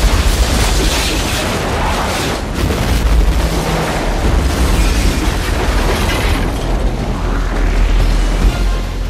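Film sound mix: a large explosion booms at the start, followed by a dense continuous roar of speedboats racing over the water, all under dramatic music.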